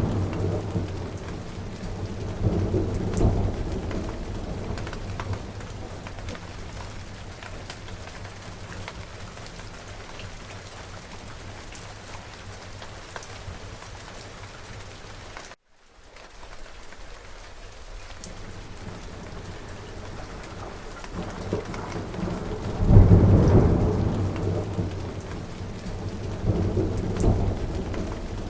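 Steady rain with rolling thunder. One rumble fades at the start and another comes about three seconds in, then there is rain alone. The sound cuts out for a split second about halfway. Near the end come two more rumbles, the first the loudest.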